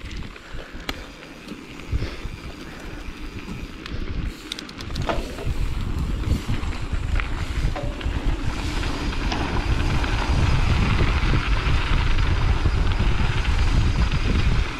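Mountain bike rolling fast down a dirt trail: wind buffeting the microphone over tyre noise, with a few sharp clicks and rattles from the bike early on. The wind noise builds from about five seconds in as the bike picks up speed and is loudest over the last few seconds.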